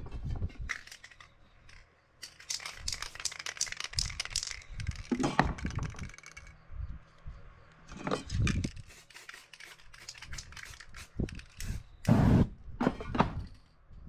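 Rustling and crinkling handling noises as hands work a painted surface and shift a stencil sheet on it. The sound comes in several clusters of rapid crackles with a few soft knocks, and the loudest cluster is near the end.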